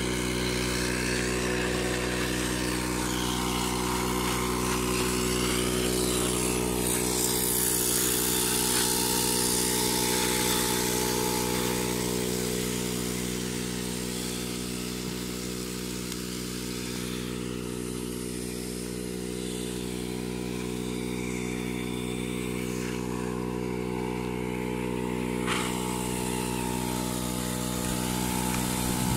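A machine motor running steadily, a constant hum that does not change in pitch, with one short click about 25 seconds in.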